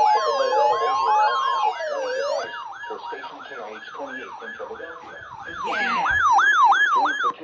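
Electronic emergency-vehicle sirens sounding together: slow rising-and-falling wails under a two-note alternating tone, giving way about two and a half seconds in to a faster yelp that fades and then grows louder again near the end.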